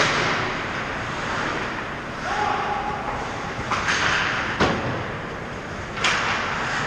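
Ice hockey skates scraping and carving on the rink ice in several hissing strokes, with one sharp crack of a stick or puck impact about four and a half seconds in.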